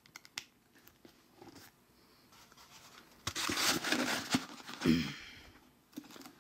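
Hands handling a boot and its packing stuffing: small handling clicks, a brief rustle about three and a half seconds in, then a dull thump about a second later.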